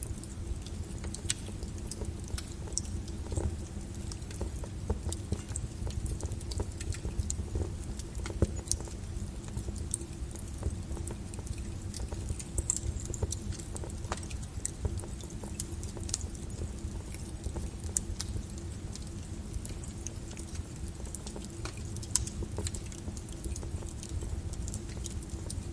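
Wood crackling on a small fire in a fireplace: irregular sharp pops and snaps, several a second, over a steady low rumble of the flames.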